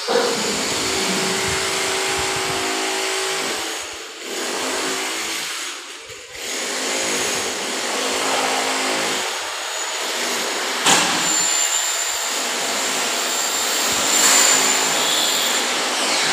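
Electric power tool running steadily with a motor whine. It drops away briefly about four seconds in and again about six seconds in, and a sharp click comes near eleven seconds.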